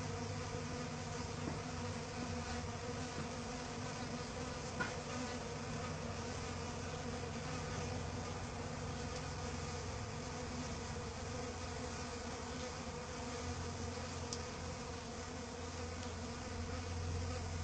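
Euglossa orchid bee buzzing in flight: a steady, low wingbeat hum with many overtones.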